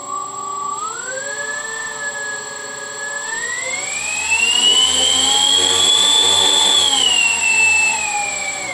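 Electric motors of a balsa Douglas DC-6B RC model spinning their propellers, throttled up. A whine rises in pitch in two steps, holds at its loudest and highest, then drops back near the end. Part of the noise is the airframe rubbing against its stand.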